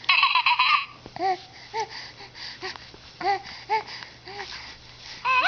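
A baby vocalizing: a loud high squeal at the start, then a string of short coos that rise and fall in pitch, about one every half second, and another loud high squeal near the end that rises and then falls.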